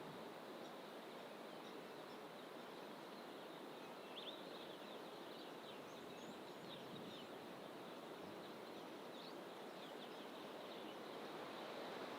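Faint, scattered bird chirps and calls, busiest in the middle stretch, over a steady outdoor background rush.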